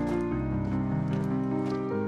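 Music: sustained held notes over a bass line, moving through slow chord changes, with faint light ticks on top.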